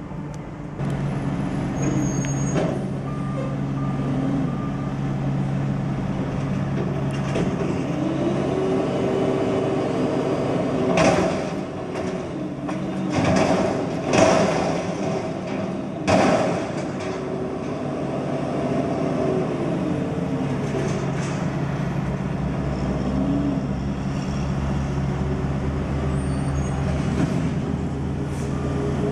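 Front-loader garbage truck's engine revving to drive its hydraulics while the forks lift a dumpster over the cab and tip it into the hopper; the whine rises and falls several times. Three loud bangs come near the middle as the dumpster is tipped over the hopper.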